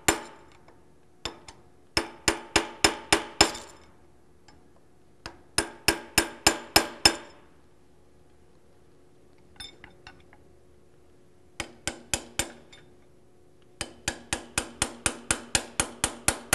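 Ball peen hammer striking a steel drift to drive the front end cap off a rotary vane vacuum pump. The light metallic taps come in quick runs of about three a second, with pauses between the runs, and the cast housing rings under each run. The longest run comes near the end.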